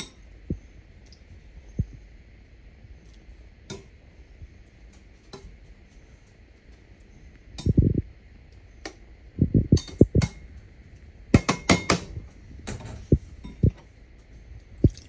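Clinks and knocks of cooking utensils against a stainless skillet holding chicken in cream sauce, sparse at first and coming in quick clusters from about halfway through, over a faint steady hiss.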